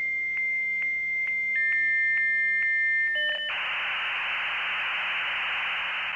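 Dial-up modem handshake: a steady high answer tone broken by clicks about twice a second, a second, lower tone joining, then from about three seconds in a harsh hiss of data noise.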